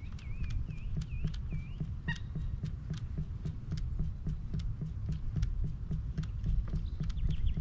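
Fishing reel being cranked during a lure retrieve: an even run of sharp clicks, about three a second, over a low pulsing rumble. In the first two seconds a bird gives four or five short whistled notes that rise and fall.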